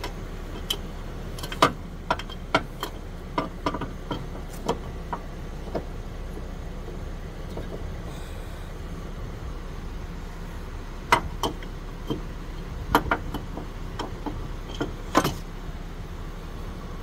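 Scattered sharp metal clinks and taps as the loosened serpentine belt tensioner and its bolt are worked free by hand among the engine-bay parts, in two bunches with a lull between, over a steady low hum.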